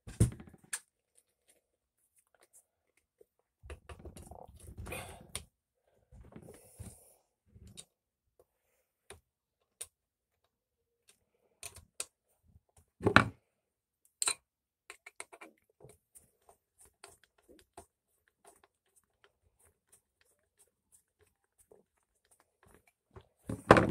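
Scattered metallic clicks, taps and a few sharper knocks as an SKS bayonet is handled and fitted onto a rifle barrel. The loudest knocks come just after the start and about 13 seconds in.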